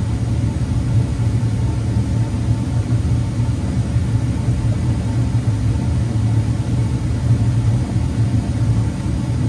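Dodge Durango SUV engine idling: a steady, even low rumble.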